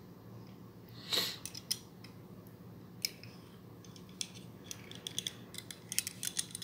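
Faint handling noises of a 1/64-scale die-cast model car in the fingers: a soft scrape about a second in and a few small clicks as its opening hood is shut, then a quick run of light ticks and taps near the end as the car is turned over.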